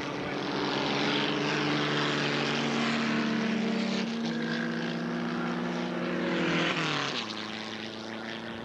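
Open-wheel race car engines running hard as the cars lap the track, a steady high engine note with a shift in pitch about four seconds in and a falling note about seven seconds in as a car goes past.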